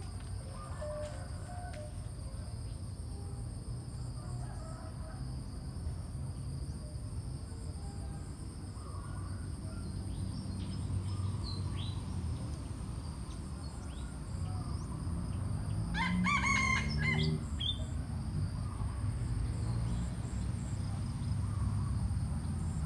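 A junglefowl rooster crows once, a single call of about a second and a half, about two-thirds of the way in. Faint short bird chirps come and go over a steady low rumble.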